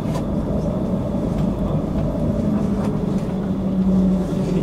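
Running noise inside a moving tram: a steady low hum from the drive over the rumble of wheels on the rails, with a few faint clicks.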